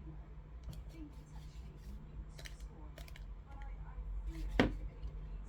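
Small clicks and scrapes of hands working on small parts and tools, with one sharp click a little past four seconds in, over a steady low hum.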